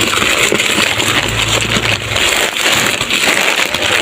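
Plastic snack packets crinkling and rustling as they are handled and sorted through by hand, a continuous crackle of many small clicks.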